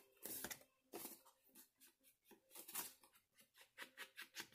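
Faint paper handling: irregular light rustles and taps as a paper journal page is worked around its edges.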